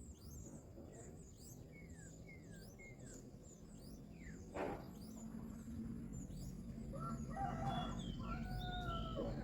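Small birds chirping repeatedly, with a sharp knock about halfway through and longer, drawn-out calls near the end.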